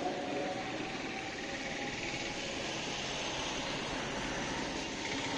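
Street ambience: a steady hum of traffic.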